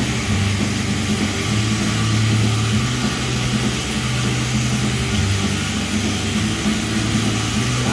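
Cummins diesel engine running with a loud, steady hiss over its low hum, from a failed turbocharger.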